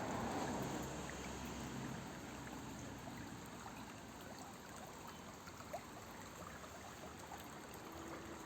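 A small stream running over its bed: a steady rush of water, a little louder in the first couple of seconds and then settling.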